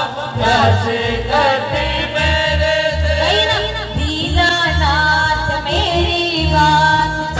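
Live Hindi devotional bhajan (a Khatu Shyam bhajan) sung by a woman over amplified instrumental accompaniment with a pulsing bass, a wavering melodic vocal line with ornamented slides.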